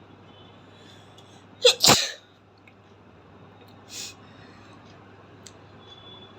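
A person sneezes once, loudly and suddenly, about two seconds in. A short, quieter hiss of breath follows about two seconds later.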